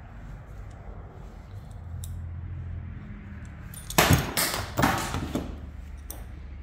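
A small part dropping and clattering down inside a car door: a burst of sharp knocks and rattles about four seconds in that lasts about a second and a half, over a steady low hum.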